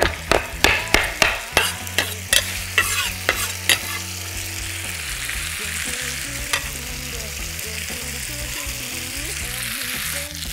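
Chef's knife rough-chopping fresh herbs on a wooden cutting board, about three quick strokes a second, for the first four seconds. Then a frying pan sizzles steadily over a gas flame as the herbs go in.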